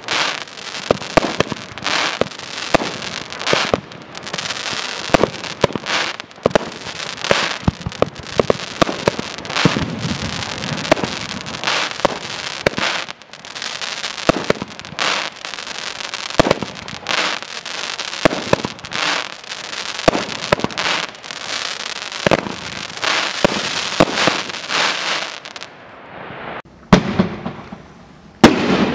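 A multi-shot consumer fireworks cake fires a rapid, continuous string of shells for about twenty-five seconds, each one a sharp launch and a bursting break in the air. It then falls quieter, and the next cake's first launches come as two sharp bangs near the end.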